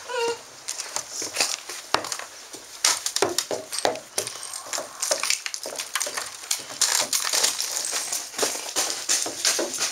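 Irregular clicks and scuffs of footsteps and paws on wooden porch boards, with a few brief puppy whimpers about three to four seconds in.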